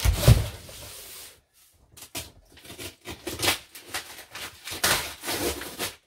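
A cardboard box set down on the desk with a thump just after the start, then cardboard and packing paper rustling and crinkling in several short bursts as the box is opened and the packing is pulled out.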